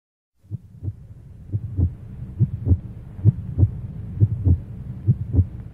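Heartbeat sound effect: paired low thumps, lub-dub, repeating a little under once a second over a steady low hum, starting about half a second in.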